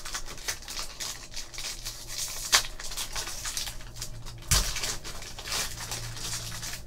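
A foil trading-card pack wrapper is crinkled and torn open by hand, a dense crackle with a sharper rip about two and a half seconds in. There is a single thump a couple of seconds later.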